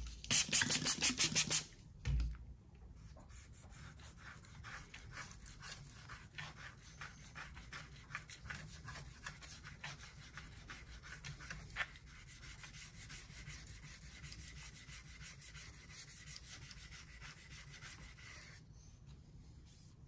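Victorinox garden knife blade stroked back and forth on a 1000-grit whetstone, working up a burr along the edge. Quick, loud strokes for the first second and a half, a thump about two seconds in, then lighter, quieter strokes until near the end.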